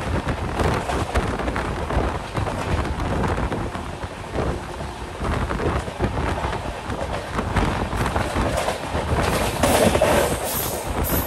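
Passenger train running at speed, heard from an open coach door: steady rumble and clatter of the coach's wheels on the rails, with wind rumbling on the microphone.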